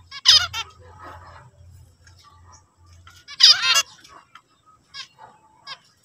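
Zebra finches calling: two loud short bursts of high calls about three seconds apart, then a few fainter calls near the end.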